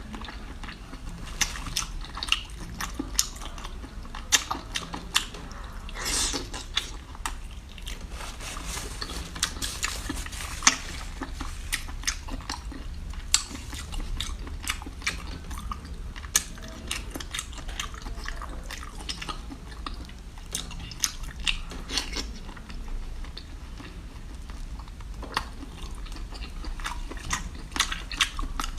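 A person chewing and biting into seafood, with many short clicks at irregular intervals.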